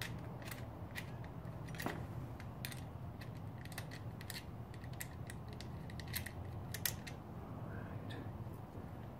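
Irregular small clicks and ticks of a hand tool backing a screw out of a bicycle's handlebar-mounted front derailleur shifter, over a steady low hum.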